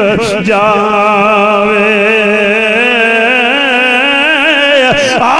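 A man's voice singing one long drawn-out note with a wavering vibrato, the last word of a line of Punjabi devotional verse. The note holds for about four seconds and breaks off near the end.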